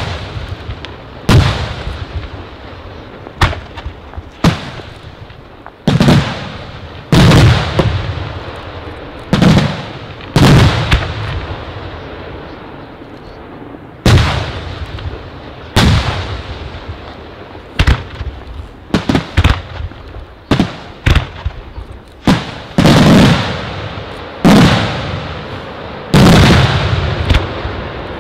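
Aerial firework shells bursting in the sky one after another: each gives a sharp bang that echoes and fades over a second or two. About two-thirds of the way through comes a quicker run of smaller reports.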